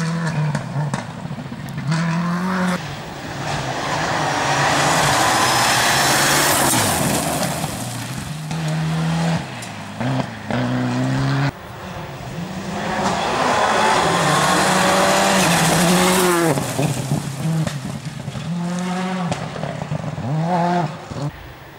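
Rally cars driven hard past on a special stage: engines rev up and drop repeatedly as they change gear, with two loud passes, some tyre squeal, and an abrupt cut to another car about eleven seconds in.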